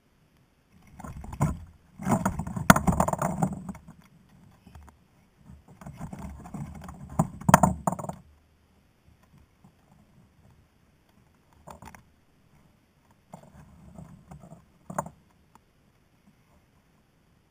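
Rustling, scraping and clinking of fish and tackle being handled on a kayak, in two longer irregular bursts with sharp clicks, then a few short knocks later on.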